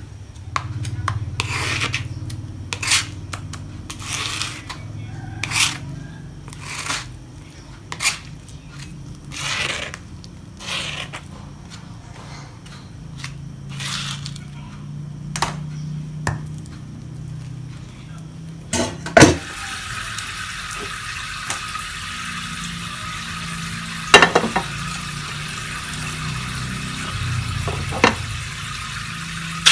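Kitchen work sounds: a plastic spatula scraping on a stone mortar and cookware clattering, with a low hum underneath. About two-thirds of the way in, the sound changes to a steady hiss with a few sharp clicks.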